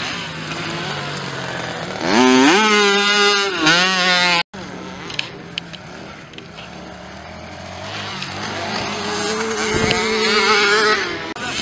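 Small motocross bikes' engines revving hard, a high whine rising and falling with the throttle. It is loudest from about two seconds in, breaks off sharply halfway through, then quieter engine sound builds again toward the end.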